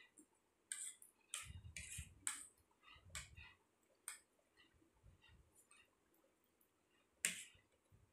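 Forks and spoons clinking and scraping on plates of rice as two children eat: scattered short clicks with a few soft thuds, the sharpest click about seven seconds in.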